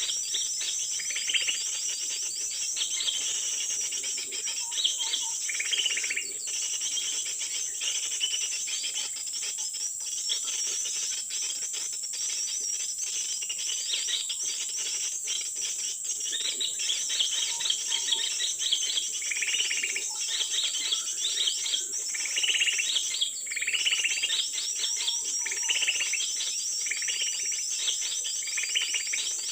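Repeated short, high bird chirps over a steady shrill insect chorus.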